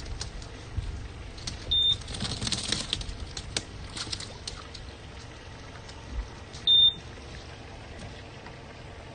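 Two short, high electronic beeps about five seconds apart, the loudest sounds here, over water splashing and dripping as a cast net is hauled back aboard a skiff by its hand line.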